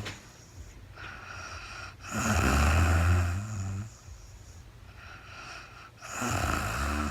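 A sleeping woman snoring: a low-pitched snore of about two seconds begins about two seconds in, and another starts about six seconds in. Softer, breathy breaths come between them.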